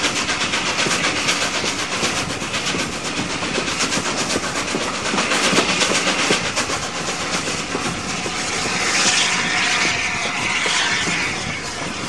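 Steam locomotive Tornado, an LNER Peppercorn A1 Pacific, working a train at speed: a rapid, even run of exhaust beats and wheel clicks under a steady rush of air, heard from an open carriage window. The rush swells and brightens about nine seconds in.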